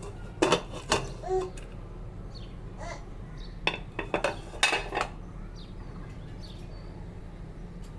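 Metal cooking utensils knocking and clinking against pots and pans, a handful of separate sharp knocks with pauses between them.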